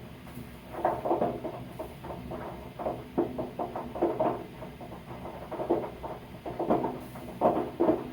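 Hot water heater tank popping and crackling in irregular bursts about once a second, a sign of sediment built up in the bottom of the tank that calls for flushing it.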